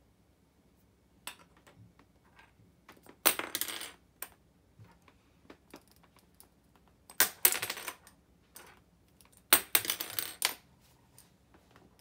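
Zebra F-301 stainless-steel retractable ballpoint pens dropped onto a hardwood floor three times, each drop a sharp metallic clatter of several quick bounces lasting about a second. Fainter ticks fall between the drops.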